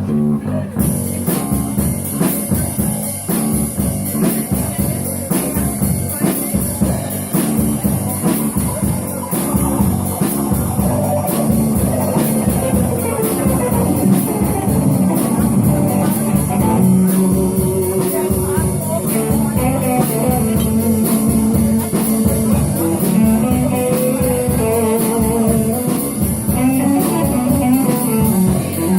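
Blues-rock music: guitar over a drum kit keeping a steady beat.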